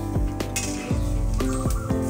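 Background instrumental music, with a metal spatula scraping and clinking against a steel wok as boiled beef intestine is scooped out.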